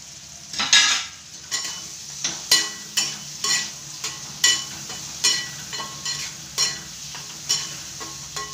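A steel spatula clinking and scraping against a kadhai, about one or two strokes a second, as boiled eggs are stirred into frying masala. The masala sizzles steadily underneath.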